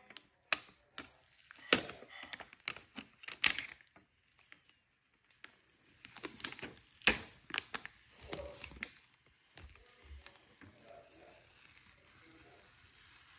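Cut vinyl lettering on its clear plastic sheet being peeled and lifted off a sticky cutting mat: a run of crackles and sharp snaps, quieter for the last few seconds.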